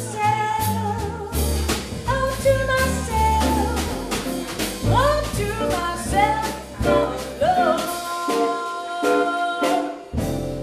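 Live jazz quartet playing in a swing style: a woman singing into a microphone over archtop guitar, upright bass and drum kit with cymbals. The bass walks note by note, drops out about eight seconds in and comes back near the end.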